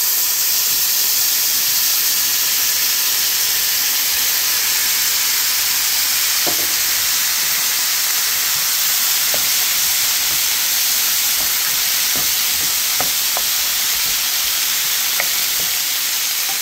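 Diced zucchini, tomatoes, green onions and cilantro sizzling in hot oil in a frying pan, just added: a steady hiss with occasional small pops and crackles from about six seconds in.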